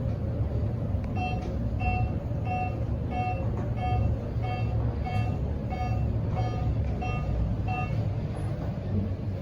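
Otis high-rise elevator's floor-passing tone: a short electronic beep repeating about every 0.6 s, one per floor, as the car climbs at about 1,200 feet per minute. It sounds over the steady low rumble of the car travelling at speed. The beeps start about a second in and stop shortly before the end.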